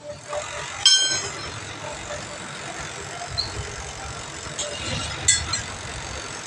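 Metal hand tools clinking against a steel car wheel rim: one sharp ringing clink about a second in and a lighter one near five seconds, over a low steady background rumble.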